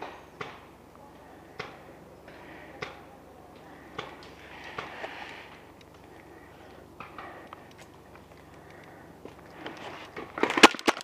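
Footsteps and rustling gear as a player moves through woodland undergrowth, with scattered snaps and clicks. Near the end comes a quick run of loud, sharp cracks.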